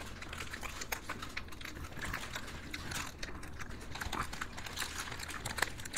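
People eating ice cream up close: a quiet, irregular run of small mouth clicks and smacks, mixed with light taps and rustles from spoons, cups and wrappers.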